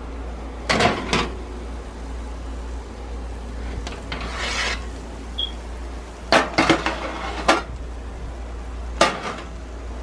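A metal sheet pan being taken out of an oven and set on the stovetop: sharp metal clanks, a short scrape, a cluster of knocks, then one last knock, over a low steady hum.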